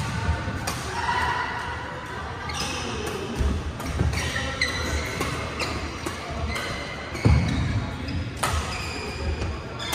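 Badminton hall court noise: shuttlecocks struck by rackets and court shoes squeaking on the floor across several games, with a heavier thump about seven seconds in.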